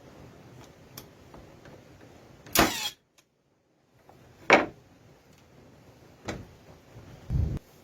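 Milwaukee 18-volt 16-gauge cordless nail gun driving nails: four sharp shots, the two loudest about two and a half and four and a half seconds in, the last one duller and lower.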